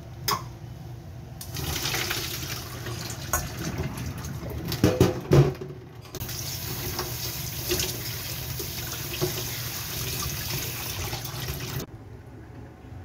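Tap water running into a stainless-steel sink and over cooked macaroni in a mesh strainer, with a few sharp knocks about five seconds in. The water briefly stops near the middle, then runs again until it cuts off about twelve seconds in.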